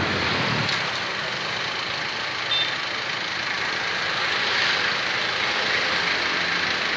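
Steady engine and traffic noise, with a brief high-pitched tone about two and a half seconds in.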